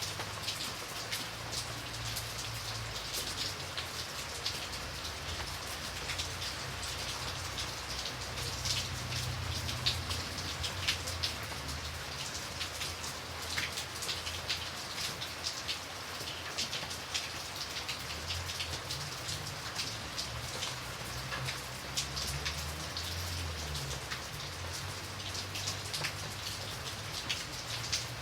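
Steady rain falling on a surface: a constant hiss full of close, sharp drop ticks, with a soft low rumble coming and going underneath.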